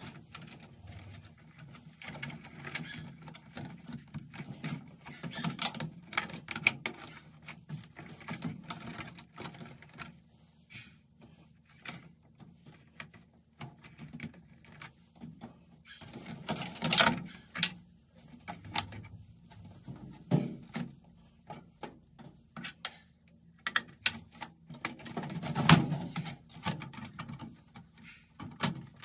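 Hands working wire harness connectors onto a washing machine's electronic control board: irregular small plastic clicks and rustling of wires. Two louder knocks stand out, about 17 and 26 seconds in, the second the loudest, as the sheet-metal cover goes on over the board.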